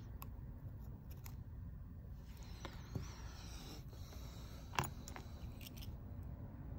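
Light clicks and taps of small repair tools and tiny parts being handled while fitting an iPhone's Face ID module, with a brief scraping rustle around three seconds in and one sharper click about five seconds in, over a steady low hum.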